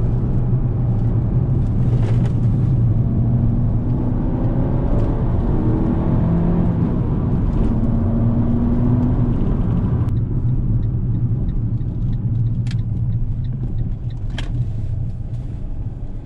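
Abarth 500 Esseesse's turbocharged 1.4-litre four-cylinder engine, running on its reconditioned cylinder head, and road noise heard from inside the cabin while driving. It is a strong low rumble with engine tones gliding up and down. About ten seconds in the higher noise drops away and the sound eases off as the car slows, with a few sharp clicks near the end.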